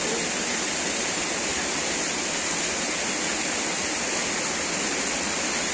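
Steady rush of falling water from a small waterfall: an even, unbroken hiss with no let-up.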